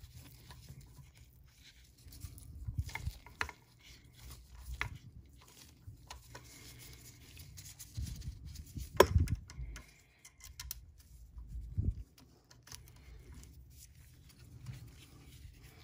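Scattered small clicks and light knocks of hand work on a vintage Singer 500J sewing machine: a screwdriver driving the screws of the stitch-indicator plate. The sharpest click comes about nine seconds in.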